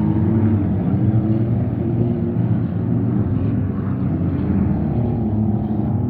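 Engines of several cars racing round a dirt track: a steady, loud drone of overlapping engine notes that rise and fall as the cars speed up and slow down.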